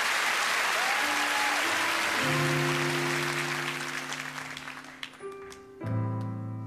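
Theatre audience applauding, the clapping fading away over about five seconds as music with long held notes comes in underneath. Near the end a loud piano chord strikes and rings on.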